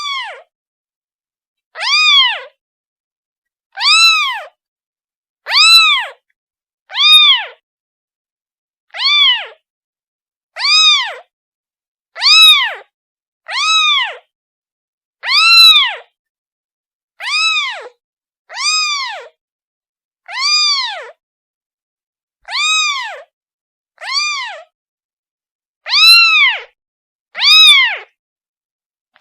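A kitten meowing over and over, calling for its mother. The high-pitched calls each rise and fall in pitch, and come about one every one and a half to two seconds with silence between.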